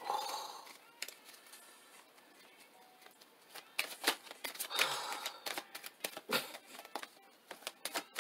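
A deck of tarot cards being shuffled by hand: a run of irregular quick clicks and slaps of cards against each other, with a longer rustle of sliding cards at the very start and another about halfway through.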